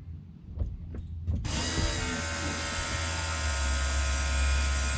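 Holden VL Commodore's external electric fuel pump, off the car and run straight from a battery, whirring steadily with a high whine. It starts about a second and a half in, after a few light clicks of the wires being touched on, and shows the rewired pump now runs and pumps fuel.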